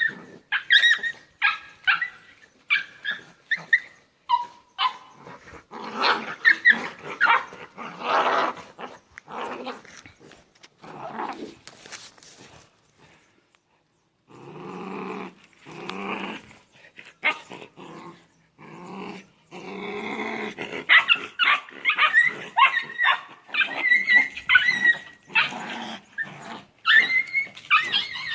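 Two small dogs squabbling, with growls and snarls mixed with many sharp yips and barks, and a brief lull about halfway through.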